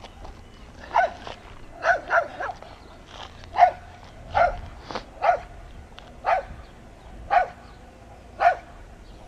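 Short, high-pitched animal calls repeated about once a second, each a brief rise and fall in pitch.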